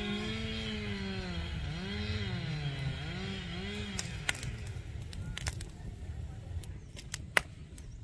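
Wood fire crackling and popping, with one loud pop near the end. Over the first half, a motor drones in the background, its pitch rising and falling.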